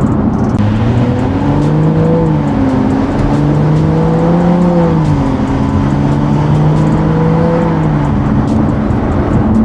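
BMW 335i's N55 turbocharged inline-six with a catless downpipe and the stock muffler, heard from inside the cabin while driving. The engine note climbs under acceleration, drops in pitch twice (about two and five seconds in), holds steady, then eases off near the end.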